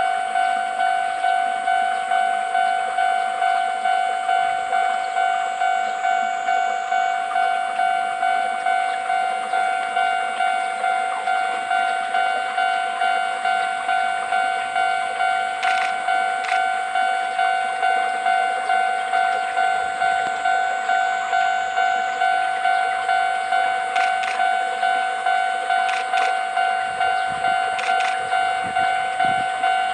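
Japanese level-crossing warning bell ringing steadily, about two strikes a second, with a few faint clanks now and then.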